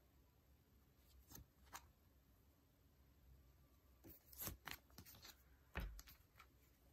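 Faint crinkles and taps of banknotes in clear plastic sleeves being laid on a table and handled in a stack: two light ticks early, then a cluster of crinkling taps past the middle, and the loudest tap with a soft thump near the end.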